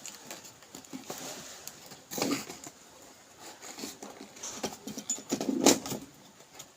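Irregular rustling and light knocks of handling, with two louder bursts about two seconds in and near the end.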